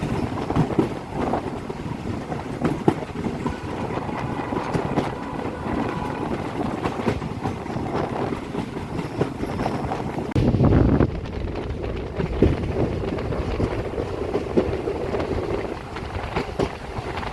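Passenger train running on the rails, with a steady rumble, frequent rattling clicks from the coach and wheels, and wind on the microphone. About ten seconds in there is a brief, louder low rumble.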